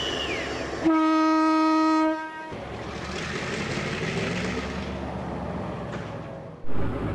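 A train horn sounds one steady blast of just over a second, followed by the rumbling noise of a train. Near the end the sound cuts abruptly to another loud train or engine sound.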